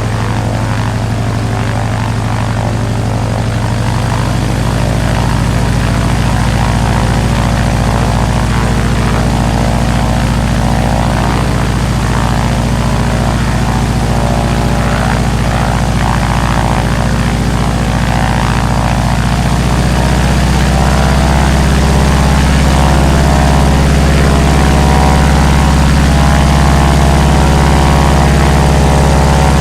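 Single-engine propeller airplane engine running with a steady drone; the engine note shifts twice, about four seconds in and again past the middle, and it gets a little louder after the second change.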